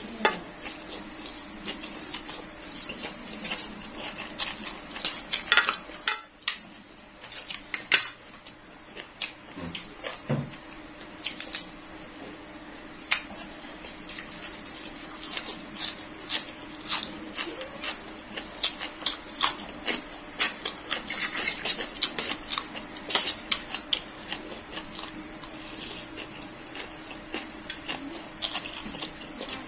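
Close-up eating sounds: rice noodles slurped and chewed, with many short clicks of a fork and spoon against a metal tray. Under it runs a steady high chirring of crickets.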